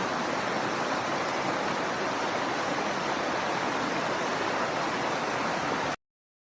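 Steady rush of flowing water from a forest river, cutting off suddenly about six seconds in.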